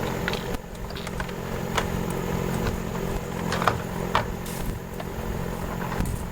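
An engine or motor running steadily with a low hum, with a few scattered clicks and knocks over it.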